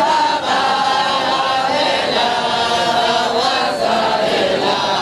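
Many men's voices chanting together in unison: a sung devotional chant from a large crowd.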